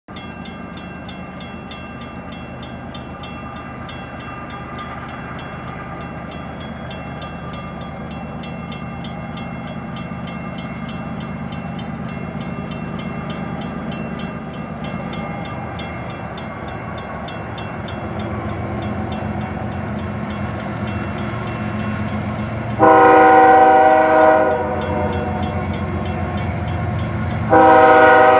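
Grade-crossing bell ringing steadily while CSX diesel freight locomotives approach, their engine rumble growing louder. About 23 seconds in the lead locomotive's horn sounds one long blast, and a second long blast begins near the end: the horn signal for the crossing.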